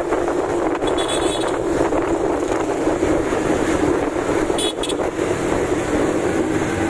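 Wind rushing over the microphone of a camera riding on a moving motorcycle, over a steady engine drone.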